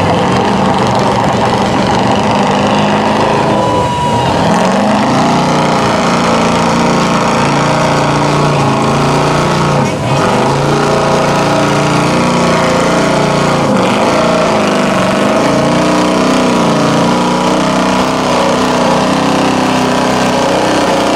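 Mud truck's engine revving hard through open exhaust stacks as it ploughs through deep mud, its pitch rising and falling, with crowd voices behind it.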